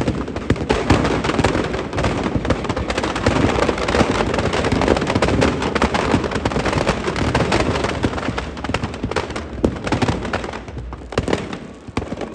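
Dense, rapid crackling and popping of firecrackers going off inside a burning Dussehra effigy, with louder bangs scattered through. It thins out near the end.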